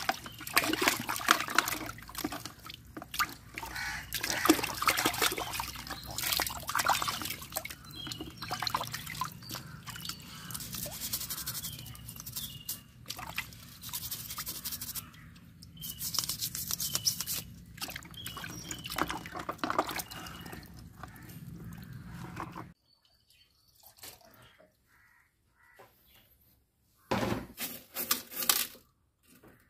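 Aquarium items being scrubbed with a brush and rinsed by hand in a basin of water: steady splashing, dripping and brush scrubbing with small clicks. It cuts off suddenly about three quarters of the way through, leaving near quiet with one short burst of noise near the end.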